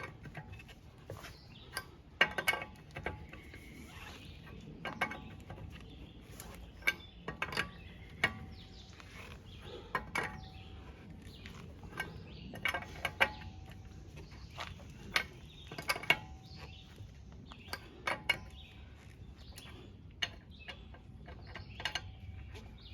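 Hand wrench ratcheting in short runs of sharp clicks every couple of seconds, tightening a wheel's lug nuts one after another.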